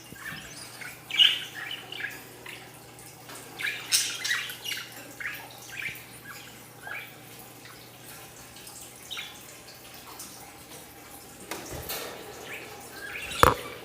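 Pet budgerigars chirping and squawking in short, scattered calls, with a sharp knock near the end.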